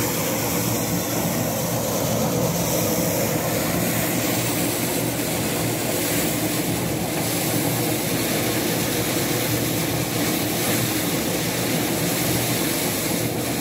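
An engine running at a steady drone, a hum of several even low tones that does not change.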